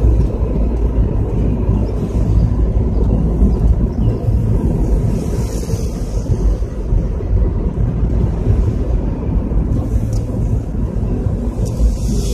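Steady low rumble of a car driving at speed, road and wind noise heard from inside the cabin.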